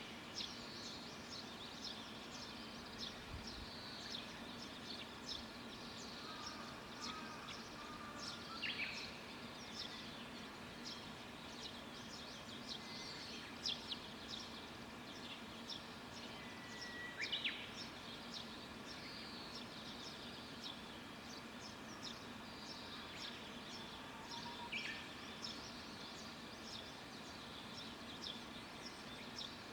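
Birds chirping and calling outside, with many short chirps throughout and a few louder sweeping calls every several seconds, over a faint steady low hum.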